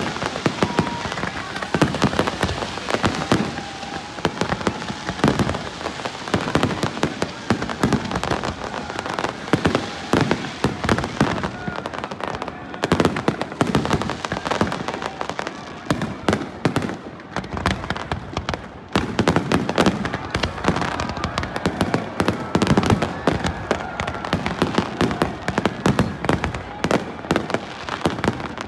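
Fireworks display: a continuous barrage of rapid bangs and crackling with no break.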